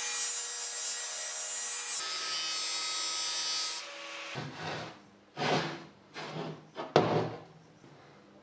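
Angle grinder with an abrasive disc grinding the edge of a steel plate: a steady high-pitched grind that changes abruptly about two seconds in and again near four seconds, then several short grinding strokes, the loudest about seven seconds in.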